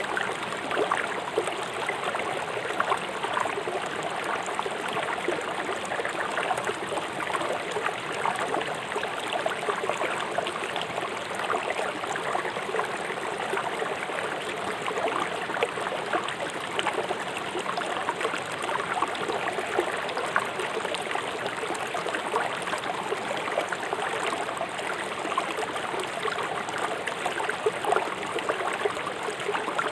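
River water rushing swiftly over stones, a steady babbling and splashing.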